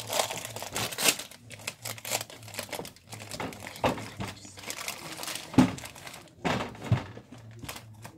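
A small plastic packet crinkling and crackling as it is handled and squeezed in the hands, in irregular snaps with a few sharper, louder crackles.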